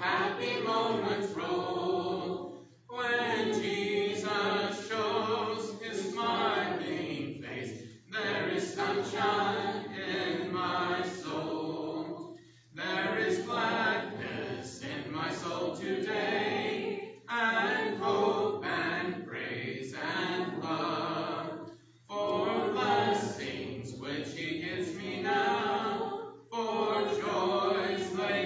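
Church congregation singing a hymn a cappella, with no instruments, in sung lines separated by short breaths every few seconds.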